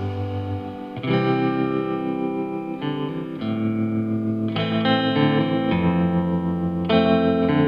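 Background music: a guitar-led track with distorted electric guitar, its chords changing about once a second.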